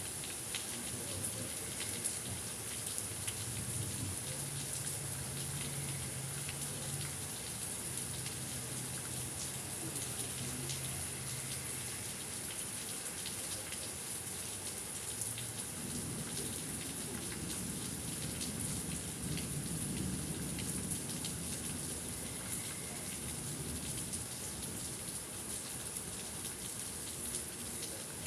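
Steady thunderstorm rain falling, with individual drops ticking on surfaces; a low rumble swells about two-thirds of the way through.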